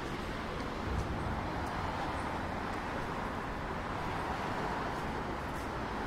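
Steady city street traffic noise: an even hiss of cars on the road.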